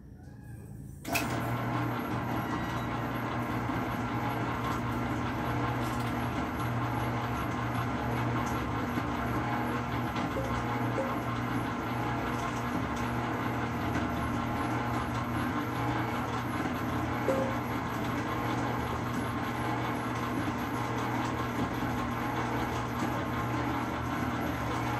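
Commercial planetary stand mixer switched on about a second in, then running steadily with a low electric-motor hum while it mixes in its steel bowl.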